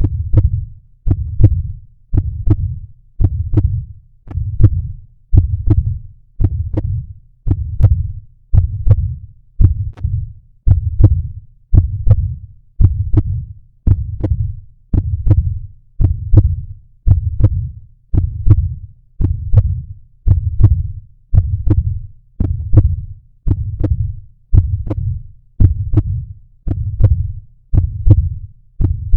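Heartbeat audio: a steady rhythm of deep, dull thumps, a little more than one beat a second, each with a soft sharp attack that dies away quickly.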